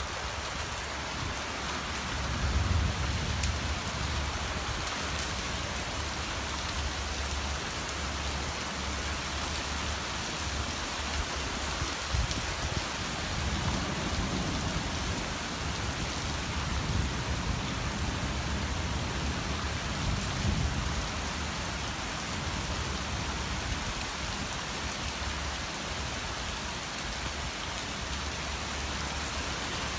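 Heavy rain pouring steadily onto roofs, ground and foliage as a dense, even hiss, with a few low rumbles swelling up and fading, about three of them.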